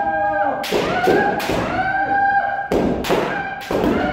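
Kendo practice: repeated sharp strikes of bamboo shinai and stamping footwork (fumikomi) on a wooden dojo floor, under long, drawn-out kiai shouts from several practitioners.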